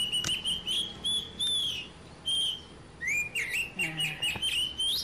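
A bird chirping and whistling again and again in high, clear notes that warble and slide up and down, with short gaps between phrases.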